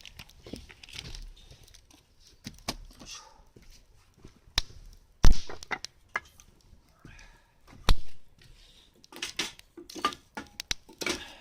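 Knocks and clatter of camp cookware and food being handled while ingredients go into a hotpot, with two sharp thunks about five and eight seconds in.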